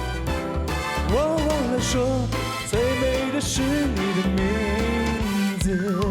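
Live pop band music: steady bass and drums under a wavering, sliding lead melody that comes in about a second in.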